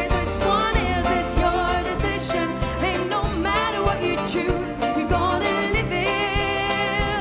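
Live band performance: a woman sings lead over banjo, drums and bass with a steady beat.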